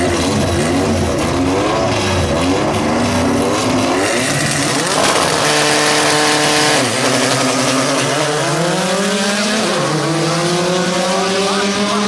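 Two Volkswagen Gol drag cars revving their engines hard at the start line, then held at steady high revs. About seven seconds in the revs drop as they launch, then climb again under full acceleration, broken by a gear shift.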